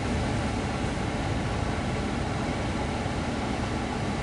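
Steady, even rumble of a car heard from inside the cabin, with no distinct knocks or changes.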